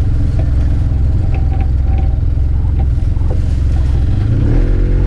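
Arctic Cat Wildcat 700 Trail side-by-side's engine running as it climbs a dirt trail, a steady low rumble with a few light clicks. Near the end the engine note rises and becomes steadier.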